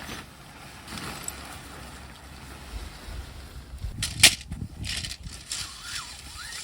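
Wind gusting against the microphone, an uneven rushing noise that rises and falls, with a few sharp knocks about four seconds in.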